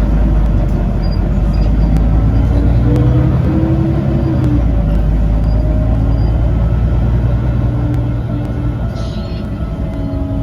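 Inside a moving double-decker bus: a steady low engine and drivetrain rumble with pitched tones that drift up and down as the bus changes speed, and a few faint clicks and rattles.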